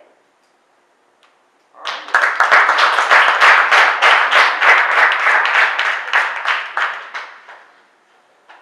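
Audience applauding: the clapping starts suddenly about two seconds in, holds steady, then dies away near the end.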